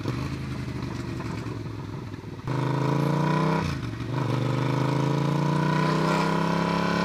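A Yamaha MT-07's 689 cc 270-degree-crank parallel-twin engine, ridden with its muffler removed (straight-piped) and running loud. It holds a steady note at first, then about two and a half seconds in opens up and pulls, the pitch rising. A brief drop in the note comes about a second later, then it pulls and rises again.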